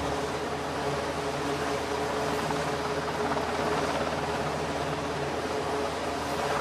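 Aircraft carrier flight deck ambience: a steady rush of wind and machinery noise with a low hum and a faint steady tone.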